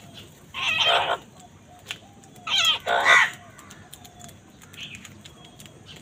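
House crows cawing: one caw about half a second in, then two more in quick succession around the three-second mark. Faint ticks of beaks pecking grain come in between.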